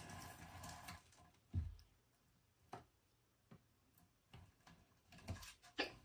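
Black-throated monitor lizard's claws tapping and scraping on a wooden ramp as it climbs down: faint, irregular clicks, with one dull thump about a second and a half in and a sharper scrape near the end.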